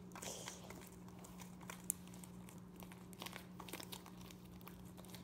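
Sticky homemade fluffy slime being stretched and kneaded in bare hands, giving faint crackling and clicks as strands cling and pull apart, with one sharper click a little under two seconds in; the slime is still too sticky to come together. A steady low hum sits underneath.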